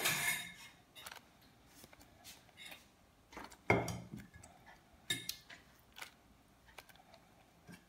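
Scattered plastic handling noises from a handheld bag heat sealer being clamped and held on a thin plastic bag: the bag crinkles and the sealer gives small clicks, with louder rustles at the start and just under four seconds in.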